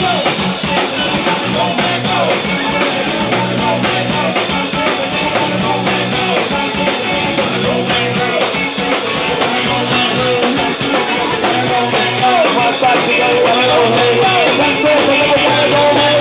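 Rock music with singing over guitar, in a punk or rock-and-roll style, getting somewhat louder about twelve seconds in.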